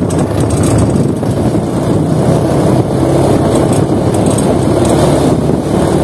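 Small ATV engine running at a steady cruising speed, with a continuous hum.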